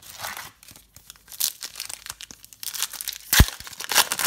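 Foil wrapper of a trading-card pack crinkling as it is handled and torn open, with one sharp snap a little past three seconds in.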